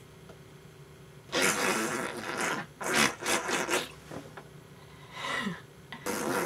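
Dachshund nuzzling against a person's jacket close to the microphone: rough rubbing and rustling in several short bursts, with a quick run of short strokes about three seconds in.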